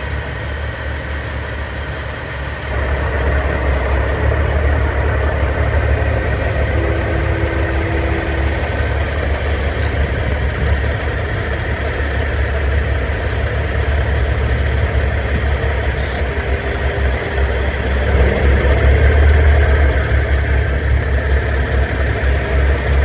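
Semi trucks' heavy diesel engines running in a deep, steady rumble that grows louder about three seconds in and again near the end.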